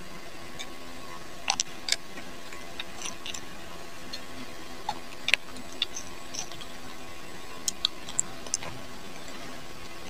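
Scattered small clicks and ticks of a screwdriver turning screws into a hair clipper's plastic casing, a few to the second at most and irregular. A steady low hum sits underneath.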